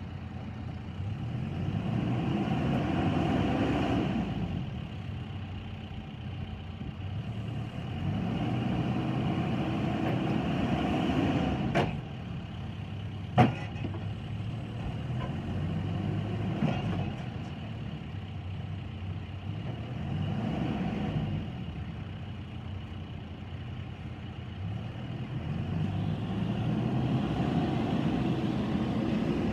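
John Deere 310SK backhoe loader's diesel engine running, swelling louder four times as if taking load and easing off between. Two sharp knocks come about twelve and thirteen and a half seconds in, the second the loudest sound.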